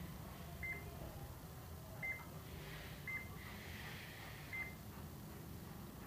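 HP Color LaserJet Pro MFP M177fw control panel giving short, high beeps as its touchscreen is tapped, four times at uneven intervals, over a steady low hum.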